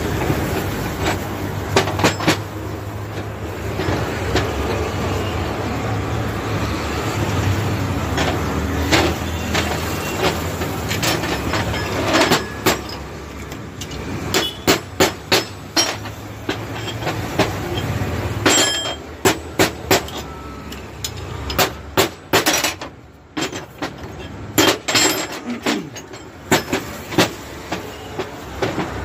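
Sharp metallic clinks and knocks of a car's CV joint being worked by hand: its steel balls and cage are fitted into the outer race and the joint is turned to check the fit. For the first eighteen seconds or so a steady low rumble sits under the clinks. After that the rumble drops away and the clinks come thick and sharp.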